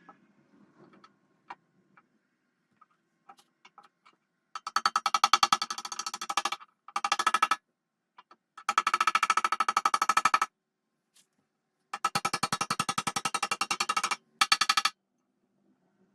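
A power tool run in five short bursts, each a rapid buzzing rattle, after a few light metal clicks.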